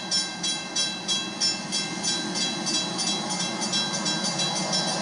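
Railroad grade-crossing bell ringing steadily at about three strikes a second as the crossing gates rise after the train has cleared, over a low rumble.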